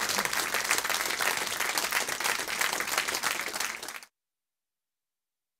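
A room full of people applauding, many hands clapping at once; the applause cuts off suddenly about four seconds in.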